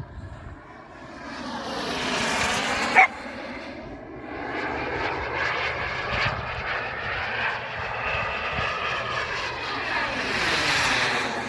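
KingTech turbine of an RC model jet running as the jet flies by. Its whine and rush sweep down in pitch as it passes, about two seconds in and again near the end. A single sharp click sounds about three seconds in.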